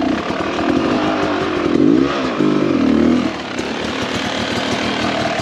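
Dirt bike engine revving in repeated bursts, its pitch rising and falling. A little past halfway it drops back to a lower, steadier running.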